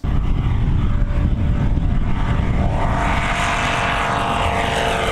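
Single-engine light sport aircraft running at takeoff power as it lifts off and flies past, its propeller and engine note building up strongly about three seconds in. The pitch glides down near the end as it passes.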